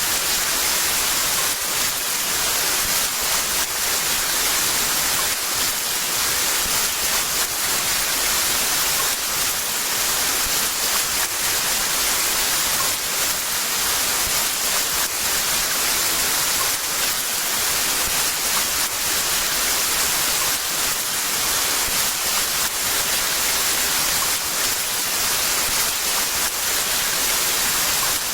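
Heavy rain falling steadily, a dense even hiss with no breaks or thunder.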